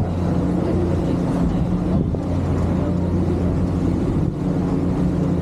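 Passenger ferry's engines running, a steady low hum, with wind noise on the microphone.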